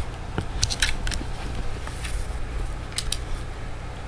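A beagle gnawing on a bone: irregular sharp crunches and clicks of teeth on bone, several in quick succession just under a second in and two more about three seconds in, over a steady low hum.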